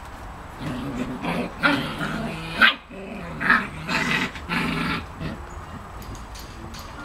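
Alaskan Malamute puppies growling and barking: a string of short, pitched growls and yaps from about half a second in until about five seconds, then they stop.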